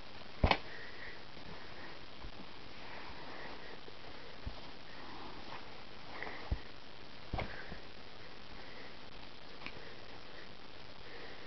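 A kitten sniffing over a steady background hiss, with a few short knocks. The loudest knock comes about half a second in, and smaller ones follow every second or two.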